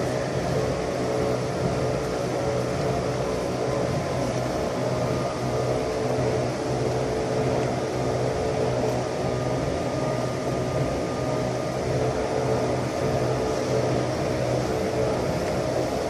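Steady machinery hum: a low drone with a few faint held tones above it, unchanging throughout.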